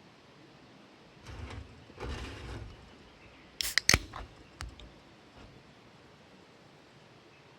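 Handling noise: two brief rustles, then a quick run of sharp clicks or knocks about four seconds in, with a lighter click half a second later.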